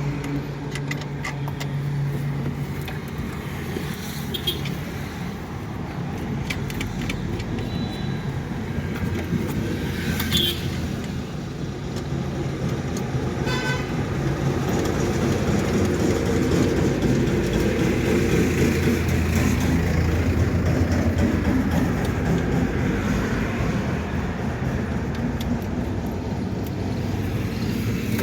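Steady road traffic noise with the hum of passing vehicles, rising somewhat in the second half. There are a few light metallic clinks, and one brief horn toot about thirteen seconds in.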